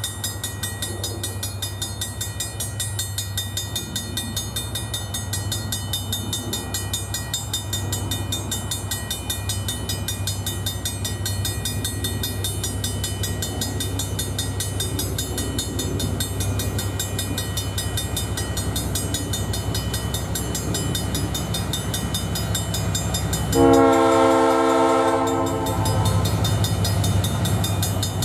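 A grade-crossing bell ringing rapidly over the steady low hum of a diesel train drawing closer. About 24 seconds in, a train horn sounds one loud chord for about two seconds, then fades.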